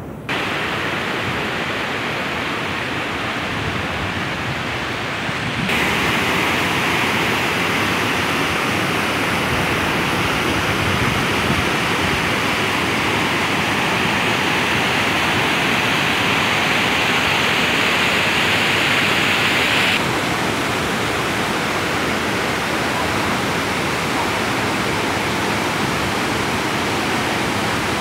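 Rushing water of a rocky mountain stream cascading over boulders in small waterfalls, a loud steady rush. It gets louder and brighter about six seconds in and drops back about twenty seconds in.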